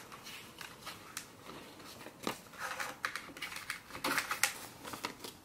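Paper dollar bills being handled and counted out: soft, irregular rustles and flicks of banknotes, with light clicks.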